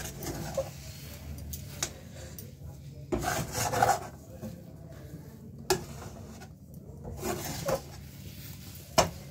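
Metal spatula scraping and stirring a thick paste of ground chana dal around a kadai in irregular rasping strokes, with a few sharp clicks of metal on the pan. The paste has been cooked until its water has dried off. A steady low hum runs underneath.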